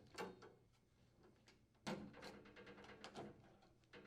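Faint plastic clicks and rattles of cooktop spark switches being pulled off the gas valve shafts and handled: a light knock early, a sharper one just under two seconds in, then a run of small clicks.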